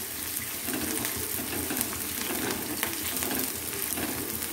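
Chopped onion and green capsicum sizzling in oil in a steel kadhai over a medium gas flame, stirred with a wooden spatula: a steady sizzle with small ticks of the spatula moving through the vegetables.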